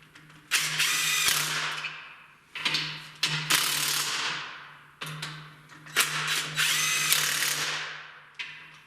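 Cordless impact wrench running head bolts down on a Hemi engine's cylinder head: three bursts of rapid hammering over a motor hum, the last one the longest, each winding down when the trigger is released. The bolts are being snugged tight, not torqued.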